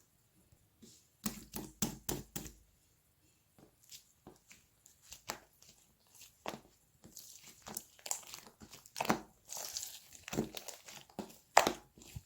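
Slime being pressed, folded and stretched by hand, giving a run of sharp sticky pops and clicks. A denser crackling stretch comes a little past the middle.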